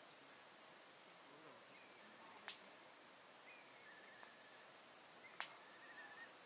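Near silence: quiet outdoor ambience with faint, brief high chirps and a couple of short trills. Two sharp clicks about three seconds apart stand out.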